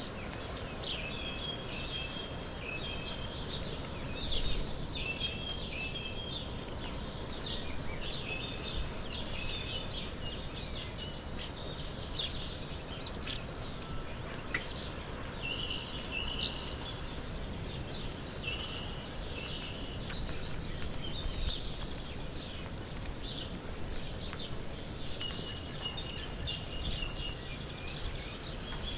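Small birds chirping and singing in short, repeated calls and trills throughout, over a steady low rumble of outdoor background noise. A single sharp click sounds about halfway through.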